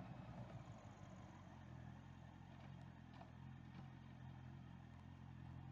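Honda CBR650R's inline-four engine, heard faintly, settling about two seconds in to a steady idle.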